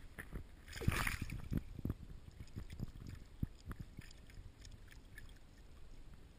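Water splashing about a second in as a released pike kicks free of the hand in shallow water, followed by small sloshes and soft bumps near the microphone.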